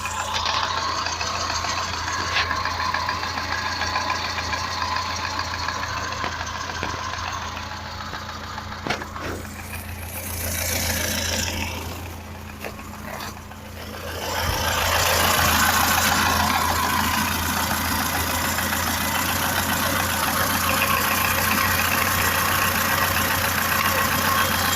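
Vehicle engine running, with a knock that has newly appeared. It grows louder about halfway through and stays louder.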